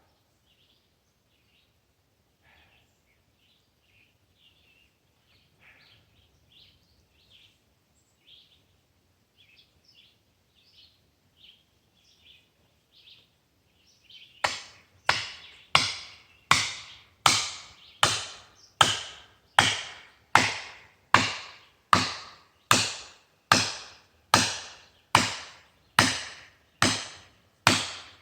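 Faint birds chirping, then about halfway through a steady run of sharp, evenly spaced blows, a little more than one a second, as a felling wedge is hammered into the cut of a dead ash tree.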